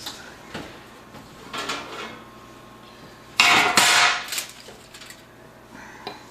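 Metal engine parts being handled on a workbench: a few light clicks and knocks, then a louder clattering rattle lasting about a second, starting about three and a half seconds in.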